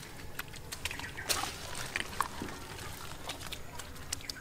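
Irregular wet slaps, squelches and small splashes of hands working through mud and shallow water while feeling for fish.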